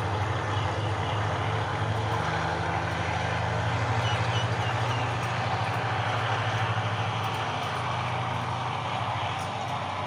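Diesel passenger train pulling away: a steady low engine hum over the rumble of the train running on the track, fading somewhat near the end as it recedes.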